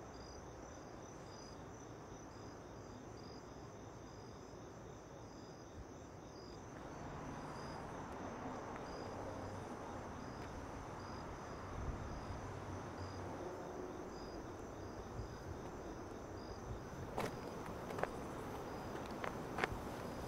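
Crickets chirping at night: a steady high trill with a slower repeated high chirp, over faint outdoor background noise. A few soft clicks come near the end.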